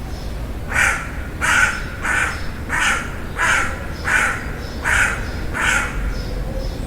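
Crow cawing: a run of about eight caws, evenly spaced roughly two-thirds of a second apart, that stops near the end.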